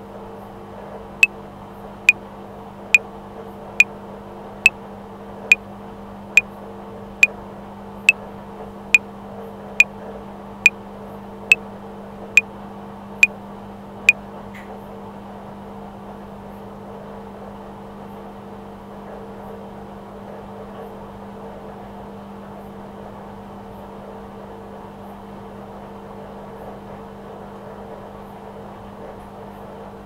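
Top-loading washing machine running steadily on a 60° cotton wash, a constant hum. Over it, sixteen even metronome clicks at 70 beats a minute (four bars of 4/4) sound, stopping about halfway through while the machine runs on.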